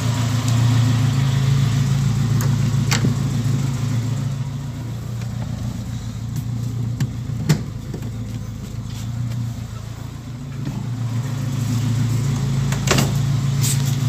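A 1976 Firenza's engine idling steadily, with a few sharp clicks or knocks over it, the loudest about seven and a half seconds in.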